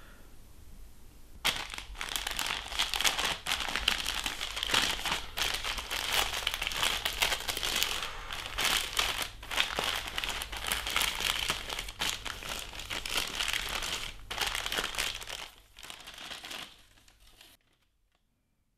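Gift-wrapping paper crinkling and tearing as a present is unwrapped, a dense crackle that starts about a second and a half in and cuts off suddenly near the end.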